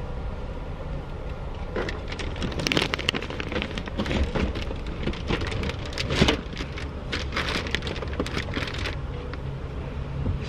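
Plastic wrapping on a large mirror crinkling and crackling in an irregular run of rustles for several seconds, with a louder knock about six seconds in, over a steady low car-cabin rumble.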